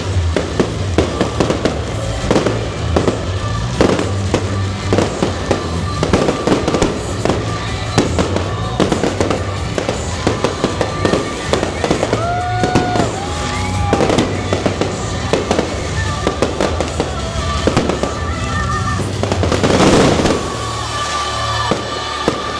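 Fireworks display: a rapid run of bangs and crackling bursts, with a bigger burst about twenty seconds in, over music with a steady bass beat.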